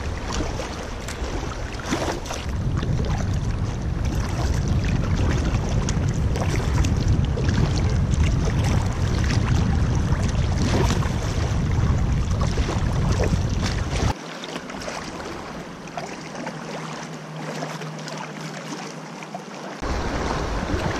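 Fast river water rushing and splashing around an inflatable canoe in small rapids, with wind buffeting the microphone as a deep rumble. The rumble drops out abruptly about two-thirds of the way through and comes back near the end.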